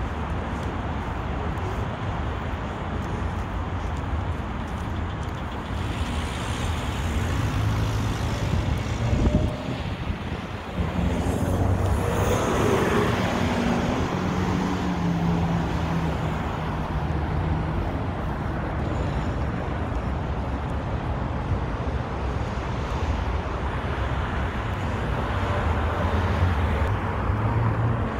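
Road traffic passing along a busy city street, a steady rumble of cars, with one louder vehicle going by close about twelve seconds in.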